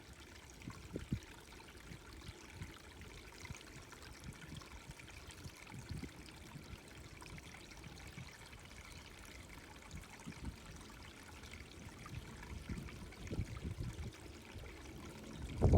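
A small creek trickling steadily and faintly, with scattered low thumps on the microphone and a louder one near the end.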